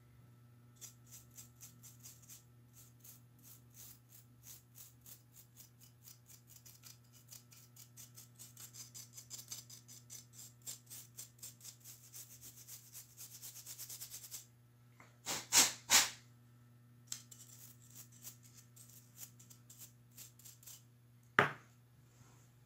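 Cleaning strokes on a laptop's copper heatsink and heat-pipe assembly, a few a second and getting faster, followed by two louder strokes and a single sharp click near the end.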